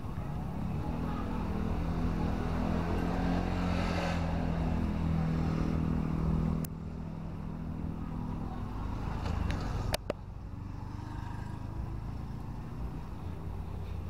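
A motor vehicle engine running with a steady low hum that stops abruptly a little past halfway, leaving quieter steady background noise. A single sharp click comes a few seconds after the stop.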